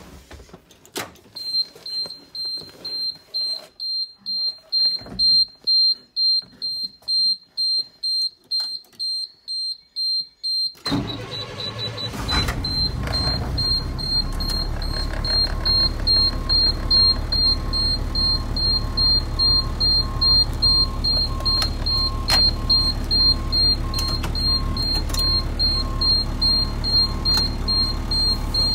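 Blue Bird school bus backup alarm beeping steadily, about two beeps a second, sounding even with the bus in neutral. About eleven seconds in, the bus engine cranks and starts, then idles under the continuing beeps.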